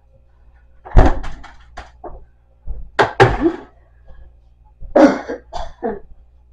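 A woman coughing in three short fits about two seconds apart, each a strong cough followed by a few smaller ones.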